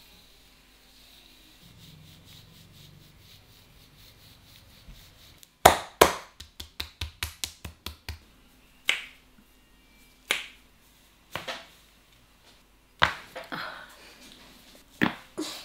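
Sharp slaps, snaps and cracks of a barber's head massage. After a few quiet seconds there is one hard crack, then a fast run of about a dozen strokes, then single sharp cracks every second or two.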